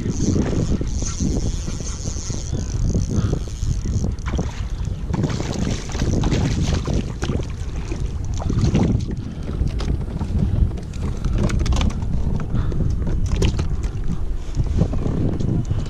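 Wind buffeting the microphone over water lapping against a kayak hull, with scattered short clicks and splashes.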